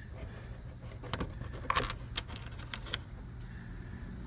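Small plastic trim clamps clicking and rattling as they are picked out of a set: about half a dozen light clicks in the middle, over a steady low hum.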